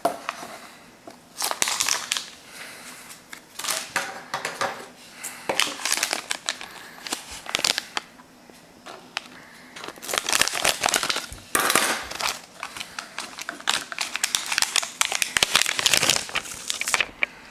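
Foil anti-static bag and foam packing blocks crinkling and rustling in irregular bursts as they are handled and opened.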